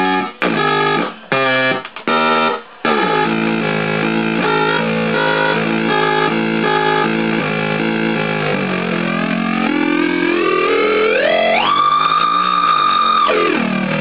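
Joystick synthesizer playing distorted electronic tones: choppy, stop-start notes for the first three seconds, then a continuous pattern of alternating pitches. Near the end the pitch sweeps steadily upward, holds a high tone for about a second and a half, then drops back down.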